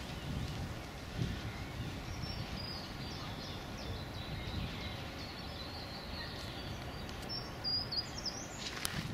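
Small songbirds chirping in quick, thin, high-pitched notes over a steady low outdoor background rumble, with a brief click near the end.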